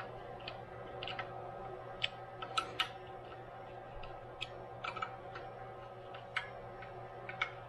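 Hand screwdriver driving screws into a steel mounting bracket on a mill's cast-iron saddle: scattered, irregular light metallic clicks and ticks, over a steady background hum.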